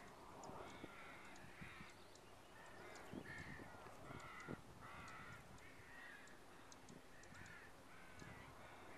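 Crows cawing over and over, faint, a call every half second or so with some overlapping.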